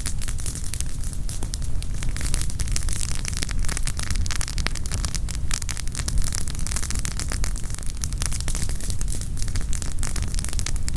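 Campfire burning, the firewood crackling in a dense, irregular run of small snaps and pops over a low, steady rumble.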